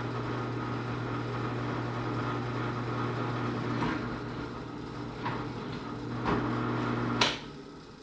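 Electric drill running steadily as a freshly sharpened bit bores through a piece of steel about 3/8 inch thick, with a few light clicks. The motor cuts off about seven seconds in with a sharp click.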